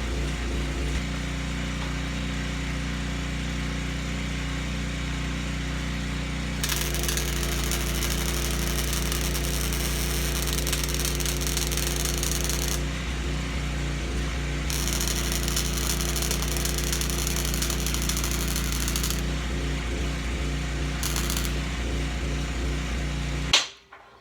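Welding on a Hobart welder: a steady electrical hum with the arc crackling and hissing through two long weld runs and one short one. Near the end, after a sharp knock, the sound cuts off abruptly.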